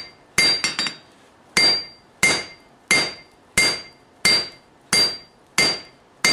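Hand hammer striking a red-hot forge-welded damascus billet on a Peter Wright anvil: about nine evenly paced blows, roughly one every two-thirds of a second, each with a bright ring from the anvil. Two quick light taps follow right after the first blow. The billet is being drawn out under the hammer.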